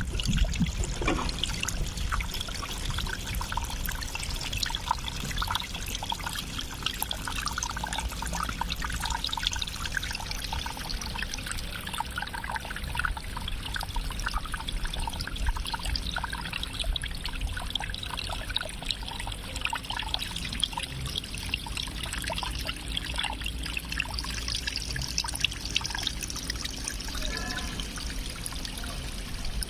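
Running water trickling and splashing steadily, with many small droplet splashes over a low rumble.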